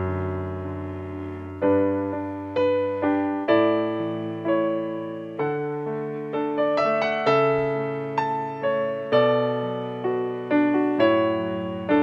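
Slow, gentle solo piano music, with notes and chords struck about once a second, each dying away.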